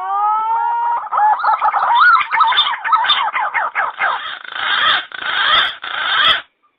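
Green pigeon (punai) calls used as a lure: a few rising whistles, then a fast, wavering, fluting warble that grows rougher and cuts off suddenly near the end.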